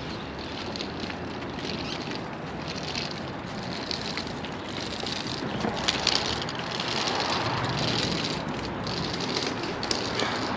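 Steady noise of street traffic and engines at a construction site, with a few light clicks about halfway through.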